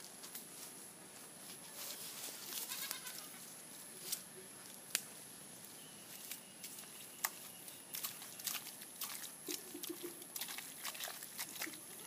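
Hands and a stick digging through wet mud, giving scattered sharp squelches and clicks. A brief animal call sounds in the background about ten seconds in.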